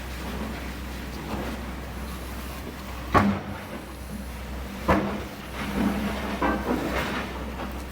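Excavator's diesel engine running steadily, with two sharp knocks about three and five seconds in, followed by a stretch of clattering, as from the bucket and machine working.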